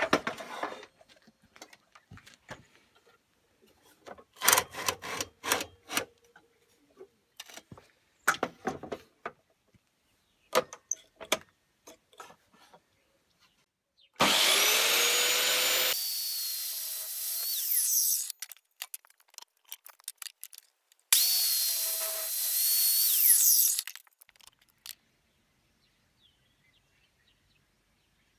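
A series of knocks and clicks, then an electric compound mitre saw cutting pallet-wood boards at 45 degrees: two runs of a few seconds each, halfway through and a little later, the motor spinning up with a rising whine at the start of each.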